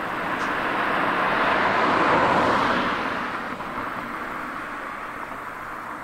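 A road vehicle driving past: its noise swells to a peak about two seconds in, then fades away.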